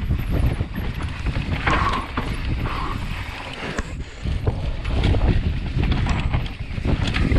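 Wind buffeting an action camera's microphone with a steady low rumble, over irregular clattering and crunching of loose volcanic rock and gravel.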